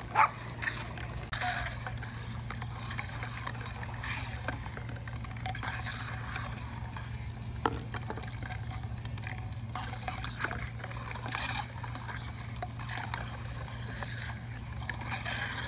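Water splashing and trickling in a glass fishbowl as motorized toy robot fish swim in it, their flapping tails throwing water up over the rim, over a steady low hum.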